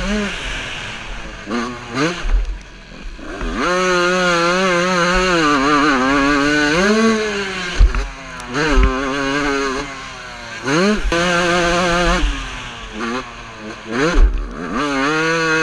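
Two-stroke motocross bike engine racing on the track, revving hard with its pitch rising and falling as the throttle is opened and chopped, cutting back sharply several times. A few sharp knocks stand out about halfway through and near the end.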